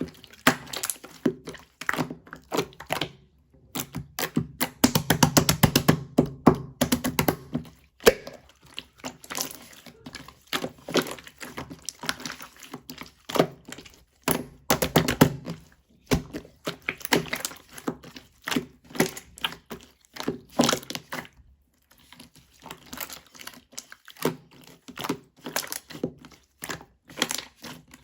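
A round handheld toy ('동글이') being squeezed and handled: a dense, irregular run of crisp clicks, taps, cracks and crinkles, with two short pauses.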